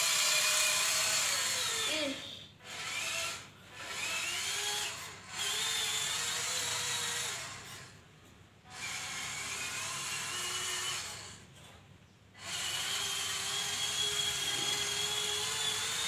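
Electric drive motor of a homemade cardboard RC truck whining as the truck drives. It runs in spells of a few seconds with several short breaks, and its pitch slowly rises and falls with speed.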